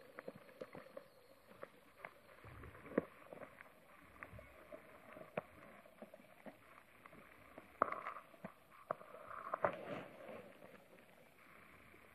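Underwater ambience picked up through a sports camera's waterproof housing: a faint muffled background with irregular clicks and knocks, a few of them louder, clustering about eight and ten seconds in.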